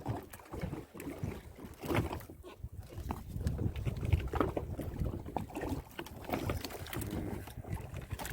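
Small boat on the water: water lapping against the hull and wind buffeting the microphone, with irregular knocks and splashes.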